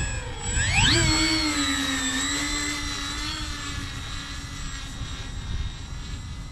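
The twin electric motors and propellers of an RC Grumman HU-16 Albatross flying boat throttle up sharply about a second in, then hold a steady whine as the model taxis across snow, the pitch easing slightly.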